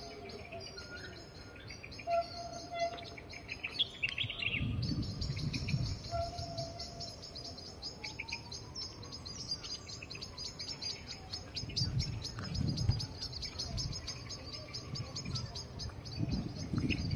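Birds chirping and calling: short repeated whistled notes in the first seconds, then a dense high chattering chorus from about four seconds in, with a couple of slow rising-and-falling whistles. A few low rumbles come and go underneath.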